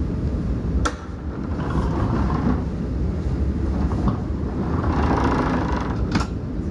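Passenger train running at speed, heard from inside the carriage: a steady low rumble of wheels on rails. Two sharp clicks come through, about a second in and again near the end.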